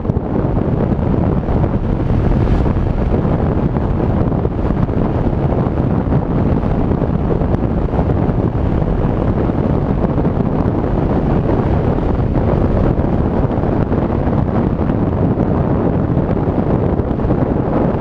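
Wind rushing over the microphone, with a Yamaha XT600's single-cylinder four-stroke engine running underneath as the motorcycle cruises at a steady speed.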